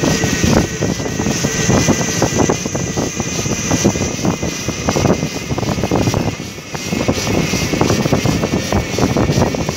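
Wind buffeting the phone's microphone as it rides along on a moving electric bike: a loud, uneven rumble, with a steady high hiss above it and a brief lull about six and a half seconds in.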